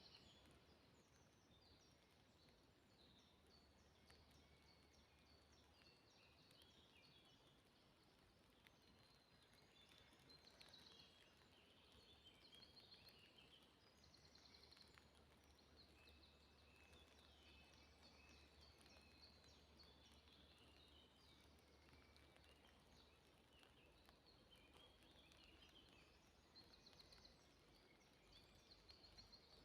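Faint songbirds chirping and singing, several calls and trills overlapping throughout.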